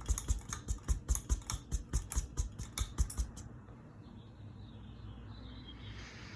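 A quick run of irregular clicks that stops about three seconds in, leaving the faint low hum of a Hunter Highbury ceiling fan running on high speed.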